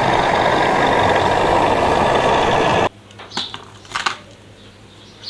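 A loud, steady, engine-like mechanical noise that cuts off abruptly about three seconds in, followed by a few light clicks.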